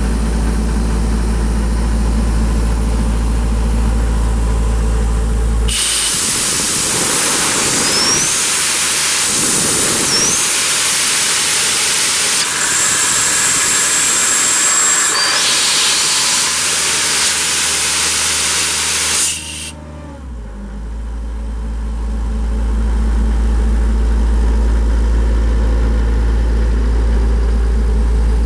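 Atlas Copco XAS 136 DD compressor's Deutz turbo diesel running steadily. About six seconds in, a loud hiss of compressed air being let off starts; it lasts about thirteen seconds and cuts off suddenly. The engine's note then picks back up.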